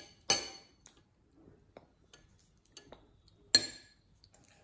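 Metal spoons clinking against bowls of oatmeal: two loud ringing clinks about three seconds apart, with lighter taps and scrapes between them.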